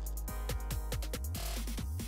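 Electronic background music with a deep bass line and a steady, fast beat.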